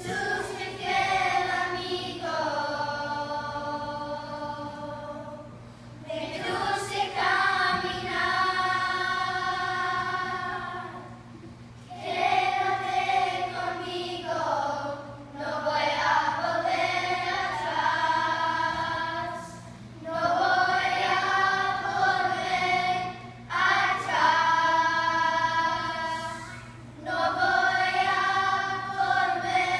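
A choir of children singing together in long held phrases, with short pauses for breath between them.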